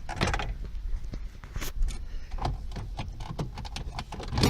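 Plastic dashboard trim rattling, scraping and clicking as it is worked into its guides, with a sharper click near the end.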